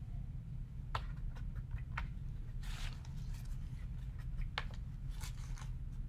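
Handling of painting materials on a tabletop: a few sharp clicks and taps and a short rustle, over a steady low hum.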